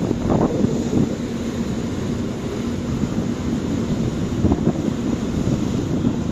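Passenger ferry under way: its engine drones steadily with a low hum, and wind buffets the microphone.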